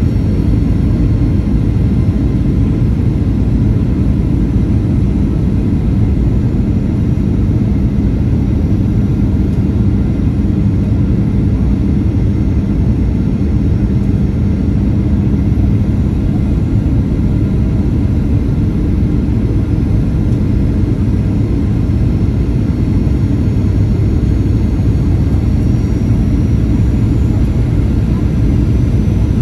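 Steady cabin noise of a jet airliner in flight on approach, the engines and airflow heard from a seat over the wing. A low steady hum runs beneath it and fades out about halfway through.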